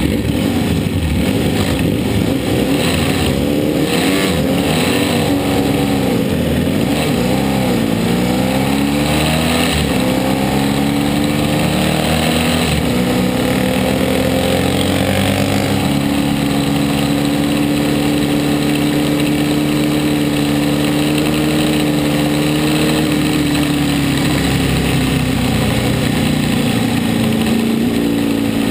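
Onboard sound of a road-racing motorcycle's engine under way on track. Its revs rise and fall through several gear changes in the first ten seconds, then hold steady, easing off briefly a few seconds before the end.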